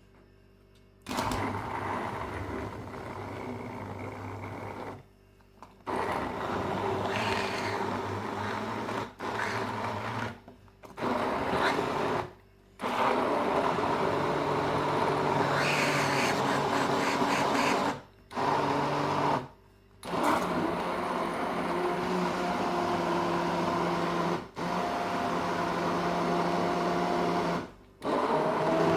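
Electric blender blending cucumber with cold water. It starts about a second in and runs in bursts, stopping and restarting about eight times.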